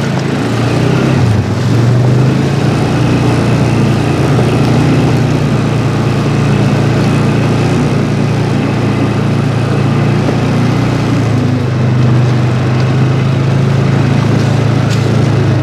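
A small vehicle engine running steadily with a low, even hum, with a brief click near the end.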